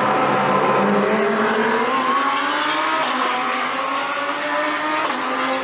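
GT3 race car engines under hard acceleration, their note climbing steadily in pitch, with a fresh engine note coming in near the end.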